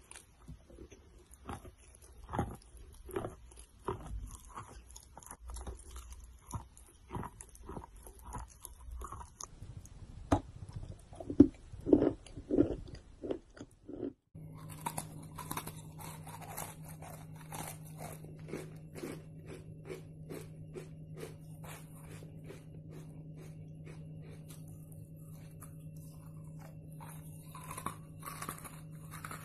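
A person biting and chewing dry chalk: crisp crunches, roughly one to two a second, loudest just before halfway. The sound then cuts, and quieter, quicker crunching continues over a steady low hum.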